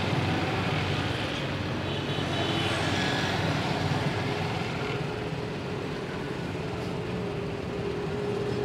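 Motorcycle engine running steadily at low road speed, heard from the rider's seat.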